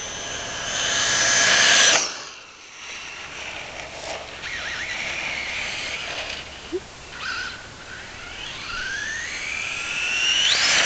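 Traxxas Rustler RC truck's electric motor and 31/76 gearing whining at high speed on a 3S battery: a loud pass close by about two seconds in that drops off suddenly, quieter runs further off, then a long whine rising in pitch and loudness as it speeds up, loudest near the end.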